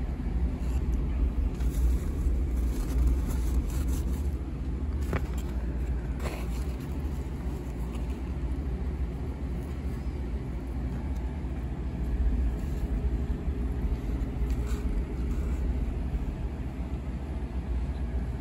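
Steady low rumble of a car engine idling, with a couple of faint clicks about five and six seconds in.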